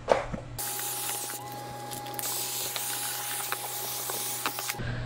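Dyson cordless stick vacuum switched on about half a second in, running with a steady whine over a loud hiss as it cleans a car's floor carpet, then switched off abruptly near the end.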